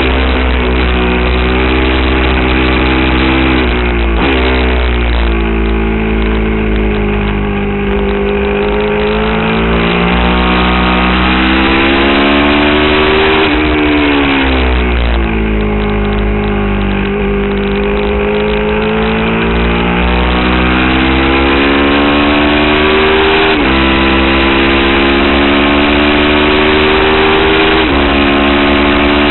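Aprilia Tuono's V-twin engine under way at track pace, heard from on the bike. Its pitch climbs and falls smoothly over several seconds as the throttle is opened and closed. It jumps abruptly at gear changes, about four seconds in and again a few seconds before the end.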